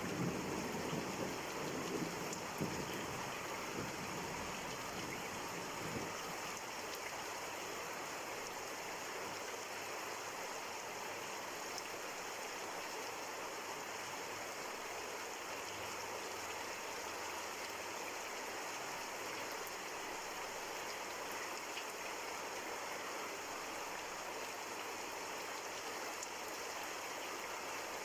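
Steady rain falling, an even hiss of drops, with the last low rumble of thunder dying away over the first few seconds.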